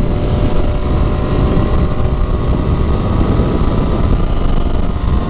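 Triumph Street Triple 675's inline three-cylinder engine running steadily at highway cruising speed, mixed with a steady rush of wind.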